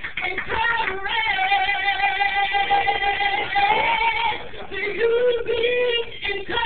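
A woman singing into a microphone, holding one long note for about three seconds, then a lower note.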